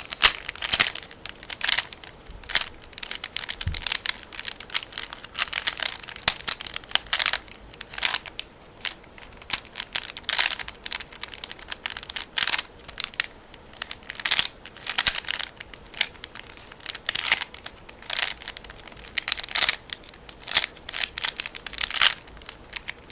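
Rubik's Cube being turned, its plastic layers clicking and rasping in short twists, about two a second, at an uneven pace.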